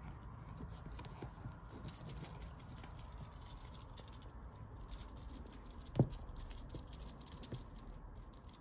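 Kittens' claws scratching and scrabbling on a crocheted yarn basket as they tussle, with soft rustling and one dull thump about six seconds in.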